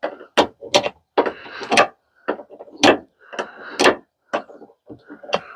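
Irregular sharp clicks and knocks of hard plastic, with short scrapes between them: plastic trim and push-in clips being worked loose by hand.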